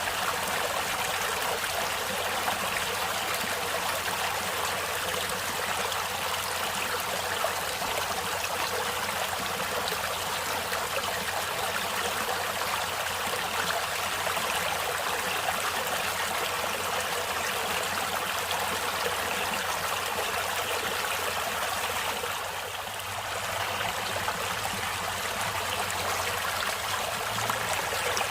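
Natural running water flowing steadily, with a brief, slight softening about three-quarters of the way through.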